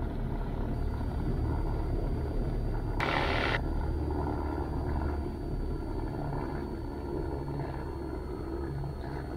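Cessna 172 Skyhawk's engine running as a steady low drone in the cockpit during the takeoff roll, held at reduced power to simulate a sick engine that won't make takeoff power. A brief hiss comes about three seconds in.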